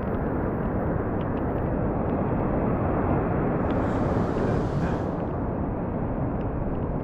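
Steady rush of surf and wind on a beach, with a brief higher hiss of water washing up about four seconds in.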